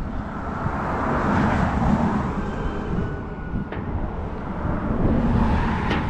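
Road traffic passing close by: vehicle noise swells about a second and a half in, fades, and builds again near the end, with a single light metallic click about midway.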